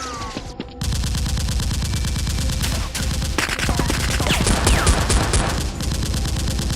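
Rapid automatic gunfire: a long unbroken burst of fast shots starting about a second in, with a few falling whines in the middle.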